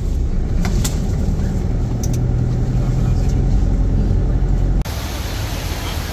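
Steady low rumble of a car driving on the road, with a few brief clicks in the first couple of seconds. About five seconds in it cuts abruptly to a brighter, even rushing noise.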